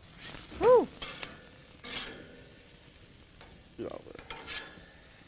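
A metal spatula scraping and clinking a few times on a grill grate as grilled bacon and jalapenos are lifted off, over a faint sizzle. Near the start a voice lets out a loud "whew".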